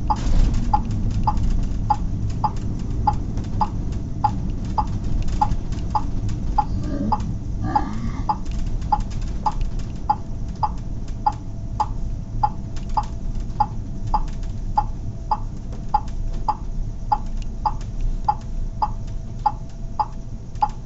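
Turn-signal indicator clicking at an even pace, about one and a half to two clicks a second, over the steady low rumble of the engine and road inside the vehicle's cab.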